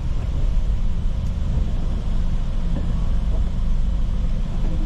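Steady low rumble of a vehicle's engine and road noise, heard from inside the moving vehicle.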